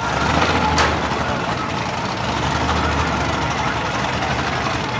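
Engines of two cars idling while staged at a drag-strip start line, a steady low running sound with a single sharp click about a second in.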